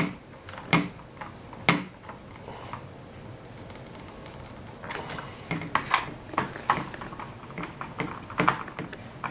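Hand screwdriver turning machine screws that fasten a foam RC plane's wing into brass fittings: scattered sharp clicks and small knocks, two early ones, then a quicker run of clicks in the last few seconds.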